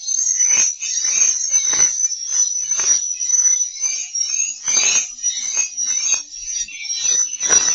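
Swiftlet lure-sound recording: a dense, continuous high-pitched twittering of swiftlets, with irregular sharp chirps several times a second, played as a call-and-roost sound to draw the birds into a swiftlet house.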